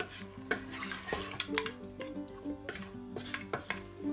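Wooden spoon stirring chunks of meat in a watery curry inside a stainless steel pressure-cooker pot, with short scrapes and knocks against the pot, over background music.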